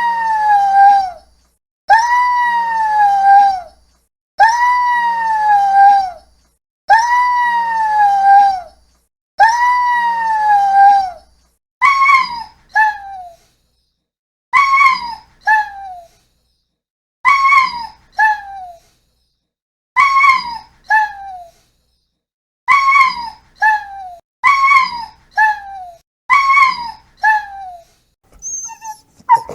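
Dog whining and crying: five long, drawn-out whines that rise and then slide down in pitch, each nearly two seconds long. About halfway through, shorter whimpering cries take over, each falling in pitch and mostly coming in pairs every two or three seconds.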